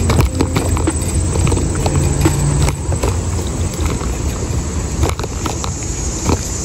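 Stroller being pushed along a concrete sidewalk: a steady rolling rumble from the wheels with frequent irregular clicks and rattles from the frame and tray.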